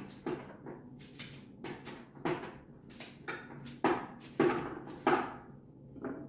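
Fresh flower stems being cut on a wooden cutting board: an uneven run of sharp cracks and knocks, about two or three a second.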